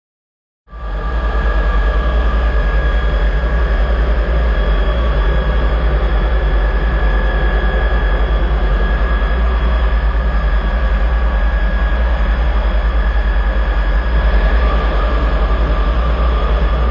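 Aircraft engine running steadily with a loud low rumble and a high whine over it, cutting in abruptly just under a second in.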